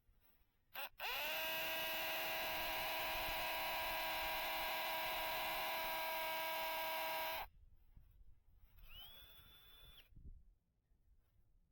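A small electric motor spins up after a short blip, runs at a steady pitch for about six seconds, then cuts off suddenly. A faint high whine rises and holds briefly near the end.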